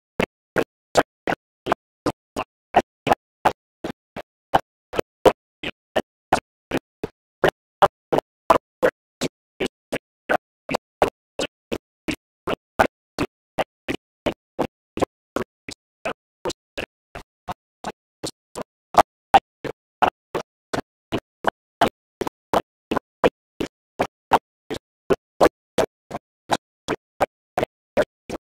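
A long, even run of short pops, about three a second, each cut off sharply with silence between.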